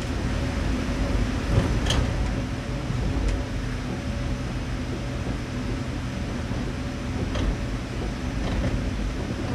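Narrow-gauge electric train running, heard from inside the driver's cab: a steady motor hum over wheel-on-rail rumble, with a few brief high squeaks.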